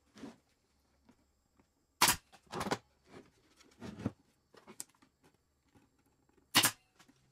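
Pneumatic brad nailer driving 18-gauge brads into plywood: two sharp, loud shots, about two seconds in and again near the end, with softer knocks of the box and tool being handled between them.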